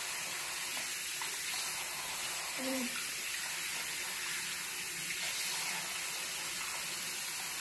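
Bathroom sink faucet running steadily into the basin.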